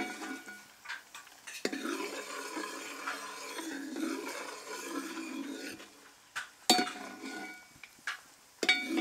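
Steel ladle stirring and scraping through a bubbling mixture of star fruit juice and coconut oil in a wide metal pan as it cooks down, with three sharp clinks of the ladle against the pan, the loudest a little past halfway.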